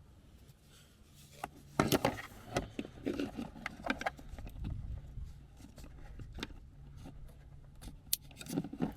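Hands working a dash speaker and its wiring in and out of the dash: scattered plastic clicks, scrapes and rubbing, with the sharpest click about two seconds in.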